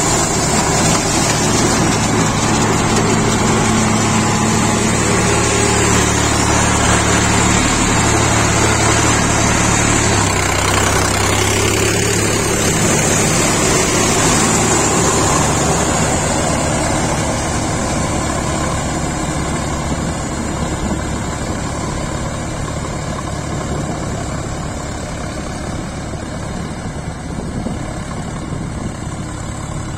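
Sonalika RX 47 tractor's 50 hp engine running steadily under load while its rear rotavator tills a flooded, muddy paddy field. The sound is loud and close at first, then grows gradually fainter from about halfway through as the tractor is heard from farther off.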